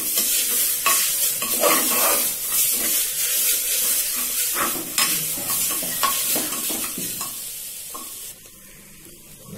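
A metal spoon stirs and scrapes a dry fry of chopped banana stem and lentils in an open pressure cooker, over a steady sizzle of hot oil. Near the end it drops suddenly to a much quieter level.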